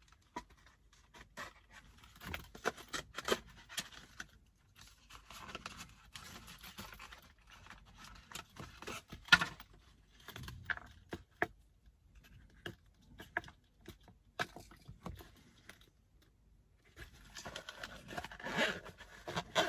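Hands handling a small carrying case and packaging, making scattered light clicks and scrapes, with louder rustling near the end.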